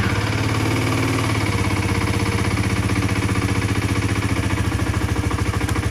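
Aprilia RS4 125's single-cylinder four-stroke engine idling steadily just after being started, with an even, rapid pulsing beat.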